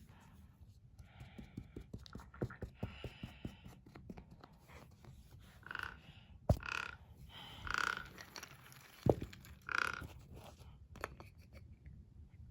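Toys being handled and pushed along, making small clicks and knocks with two sharper knocks in the middle, along with several short hummed or voiced sounds.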